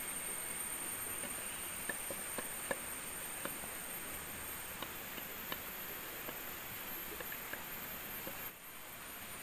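Forest ambience of insects droning steadily at a high pitch, with scattered small sharp clicks and crackles. Near the end the whole sound briefly drops.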